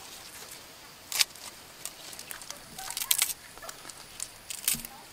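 Chopped green onions dropped by hand onto raw eggs in a hollowed gourd: a few sharp light clicks and taps over a quiet outdoor background, the loudest about a second in and a small cluster around the middle.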